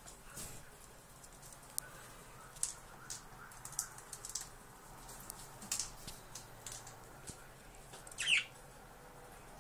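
Scattered small clicks, scratches and rustles of a Siberian chipmunk scrambling about its cage over wooden perches and wood-shaving bedding, with one louder, longer sound near the end.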